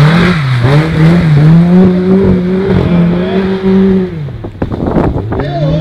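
Lada 2101 rally car's four-cylinder engine revving hard as it passes on a muddy dirt track, held at high revs for about four seconds before lifting off. A run of short knocks follows, then the engine picks up again near the end.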